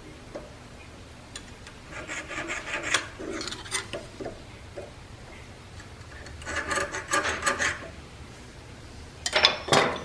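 Three bursts of rasping, scraping strokes, the last about a second long near the end, over a low steady hum.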